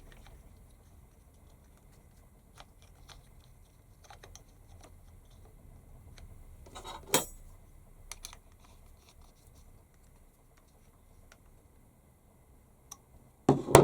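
Small steel parts and screws being handled and screwed together by hand: faint scattered clicks and taps of metal on metal, with one louder, sharp clink about seven seconds in.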